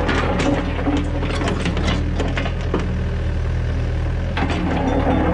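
Midi excavator's diesel engine running steadily under load while the bucket teeth rake and scrape through hard, rocky ground to loosen it, with many sharp clicks and knocks of stones and dirt against the steel bucket.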